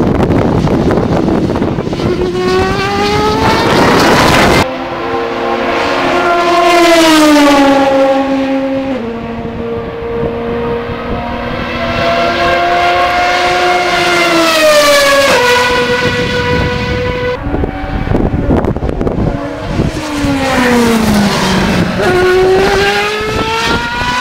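Honda HSV-010 GT500 race car's 3.4-litre naturally aspirated V8 exhaust at full throttle: the pitch climbs steadily and drops sharply at each upshift, then falls as the car slows for a corner and climbs again on the exit. Loud, over several separate passes.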